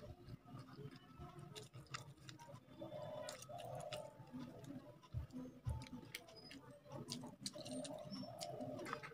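Close-up eating sounds of rice eaten by hand: many small wet clicks of chewing and fingers mixing rice on a plate, with two soft thumps about five seconds in. A low, wavering coo-like sound comes twice, around three and a half seconds in and again near the end.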